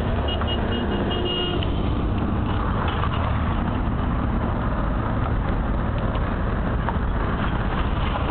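Road traffic passing on a busy avenue: a steady rumble of car engines and tyres on broken asphalt. A short run of high beeps sounds in the first second or two.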